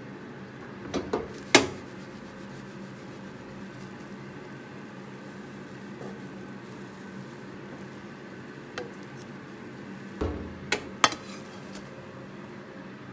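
Wooden spatula knocking and scraping against a nonstick frying pan on a gas stove while an omelette is folded over fried rice, over a steady low hum. Sharp knocks come about a second and a half in, the loudest, and again in a short cluster around ten to eleven seconds.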